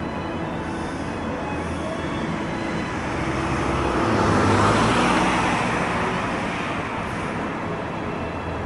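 A motor runs steadily under a rush of passing noise that swells to its loudest about halfway through and then fades, as a vehicle or boat goes past close by.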